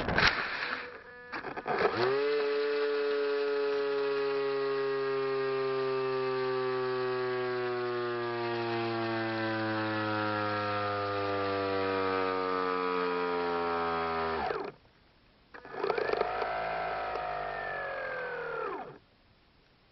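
The Stryker wing's 2212 brushless electric motor whining with the plane down in the grass: a steady pitched whine that slowly sinks in pitch and cuts off suddenly, then a shorter whine that rises and falls before stopping. A brief bump sounds right at the start as the plane comes down.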